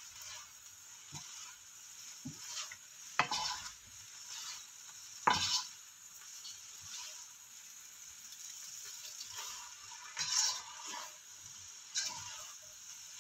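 Bihon rice noodles sizzling in a frying pan as they are tossed and stirred with a silicone spatula and a wooden spatula, with scraping and a few knocks of the utensils against the pan, the loudest about five seconds in.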